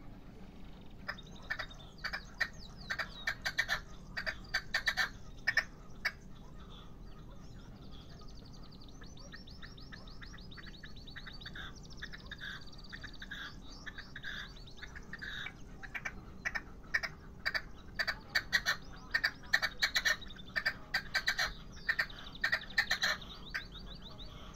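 Young male red-legged partridge calling from its decoy cage: two spells of rapid, harsh repeated notes, one near the start and a longer one from about two-thirds of the way in.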